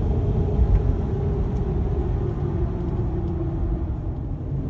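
Vehicle driving: a steady low rumble, with a hum that slowly falls in pitch.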